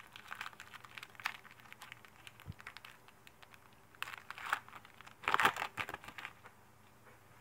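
Foil wrapper of a trading-card pack crinkling and tearing open by hand, in three short spells of crackling, the loudest about five seconds in.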